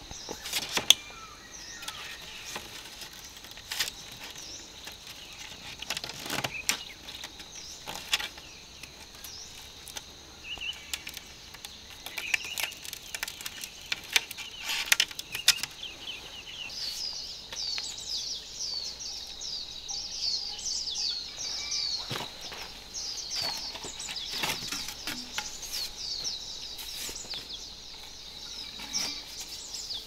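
Small birds chirping outdoors, the calls growing dense and rapid from about halfway on, over a steady high-pitched drone. Scattered sharp knocks and taps sound throughout.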